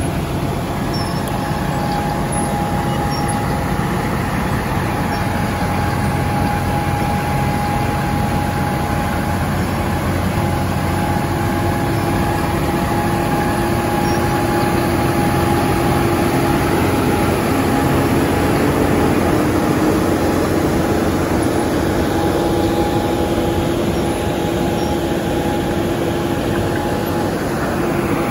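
Road milling machine at work, its diesel engine and cutting drum making a loud, steady mechanical din. A high whine runs throughout, and a lower steady tone joins about ten seconds in.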